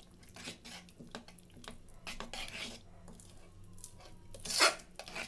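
A metal spoon stirring a thick, wet haleem mixture of ground grains, lentils and flour in a pressure cooker pot. It makes short scraping and clinking strokes against the pot, with the loudest scrape near the end.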